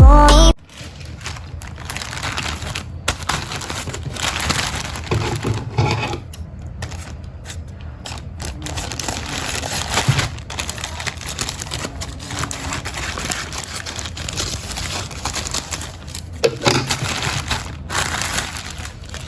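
Packaging being handled and opened: a steady run of crinkling, rustling and small clicks and taps. An electronic music intro cuts off suddenly about half a second in.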